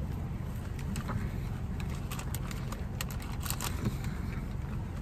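Chewing a crunchy hard-shell taco, with crackly crunches clustered in the middle, over a steady low hum of the car's engine.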